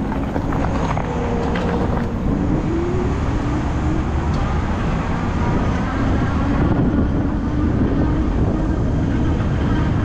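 Electric bike riding noise: wind rushing over the microphone and tyres on the road, with a low hum that wavers slightly in pitch.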